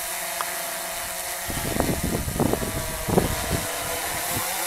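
DJI Phantom 2 quadcopter's propellers humming steadily overhead, with gusts of wind rumbling on the microphone from about a second and a half in.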